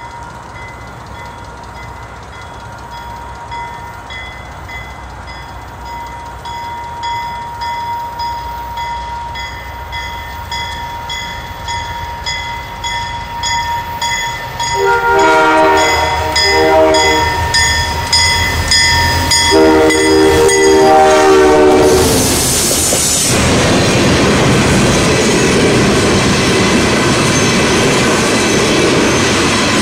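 A bell rings steadily as two Canadian Pacific SD40-2 diesel locomotives approach. Their horn sounds in blasts about halfway through. The locomotives then pass loudly, and from there on the wheels of flatcars loaded with welded rail rumble and clatter over the track.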